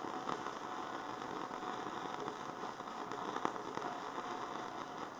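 Electric welding arc running a bead on steel bar stock: a steady crackle with sharp pops, starting abruptly and cutting off abruptly.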